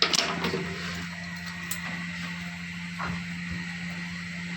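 A steady low hum with a faint high tone underneath, and a few light clinks and knocks of metal engine parts being handled: several near the start and single ones about two and three seconds in.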